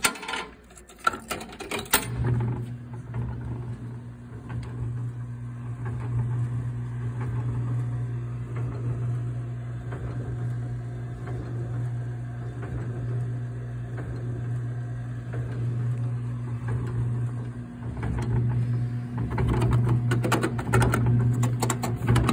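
Coin-operated kiddie ride's electric drive motor starting up after a few clicks and running with a steady low hum, the fire-truck ride working. Near the end, plastic dashboard buttons clicking and rattling over the hum.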